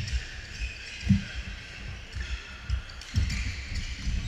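Badminton-hall background: dull thuds on the wooden gym floor, a few at first and then many from about three seconds in, over a murmur of distant voices and court noise.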